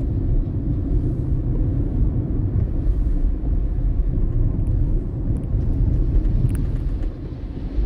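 Steady low rumble of a car driving on a wet road, heard inside the cabin: tyre and engine noise, with a few faint ticks about two-thirds of the way through.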